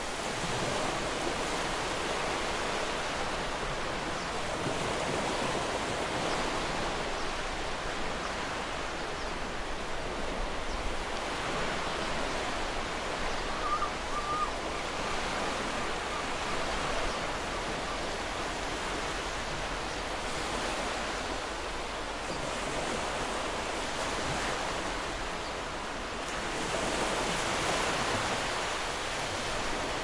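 Ocean surf breaking and washing over a rocky shore: a continuous wash that swells and eases every several seconds.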